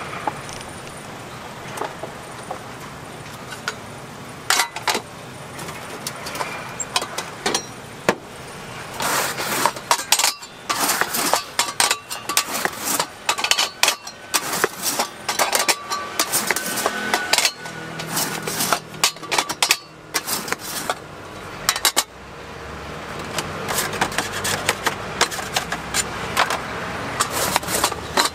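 Cleaver cutting a tray of pressed puffed-rice cake along a steel straightedge: a few scattered knocks at first, then from about nine seconds in a dense run of sharp knocks, clicks and crunches as the blade chops through the slab and strikes the metal bar and tray.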